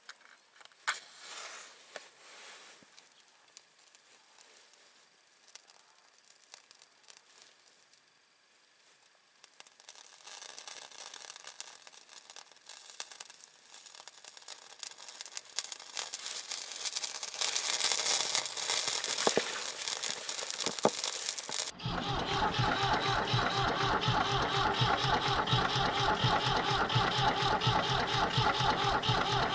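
A diesel-soaked sponge at the air intake is lit with a match and burns with a hiss and crackle that grows louder. About two-thirds of the way in, this gives way abruptly to the 1966 Ford 4000 tractor's three-cylinder engine running with a fast, steady beat after its cold start, helped by the flame at the intake.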